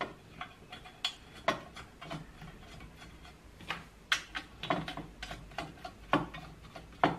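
Irregular metallic clicks and knocks, about eight, from hands working the bar nut and handmade metal chain cover of a Jonsered 2077 chainsaw. The saw is not running.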